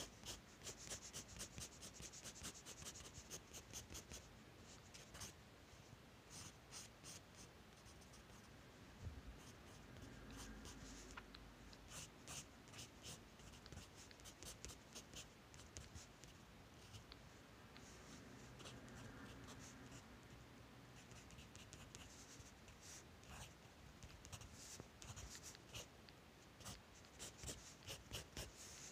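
Faint scratching of a wooden graphite pencil on drawing paper: runs of quick, short sketching and shading strokes with brief pauses between them.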